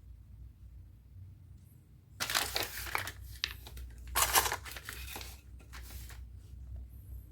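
Crinkling, rustling handling noise in three bursts about two, four and five seconds in, as the fishing gear is handled.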